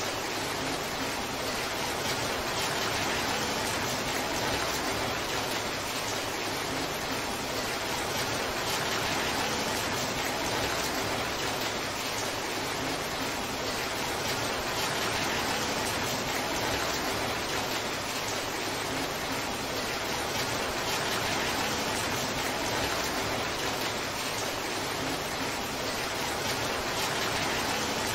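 Torrential downpour: heavy rain falling steadily, an even, dense hiss of drops with no let-up.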